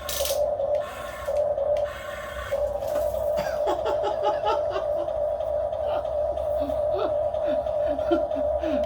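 Steady, high-pitched whine of an RC excavator's electric hydraulic pump running, cutting out briefly twice near the start. A series of short falling chirps joins it in the second half.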